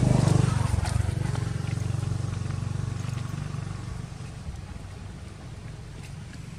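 A motor vehicle's engine running as it passes, loudest at the start and fading away over about four seconds as it moves off.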